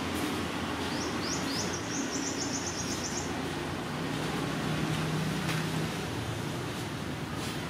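Steady outdoor background rumble, like traffic, with a small bird giving a rapid high trill of quick repeated notes from about a second in for some two seconds; a low steady hum rises briefly in the middle.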